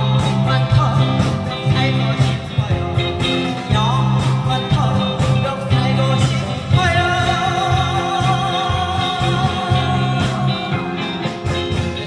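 A song: a singer's voice over instrumental accompaniment with guitar. About seven seconds in the singer holds a long note with vibrato.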